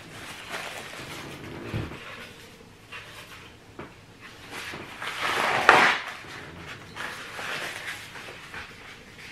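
Paper towels rustling as they are handled, with a louder rip about five to six seconds in as a sheet is torn off the roll. A soft low thump near two seconds.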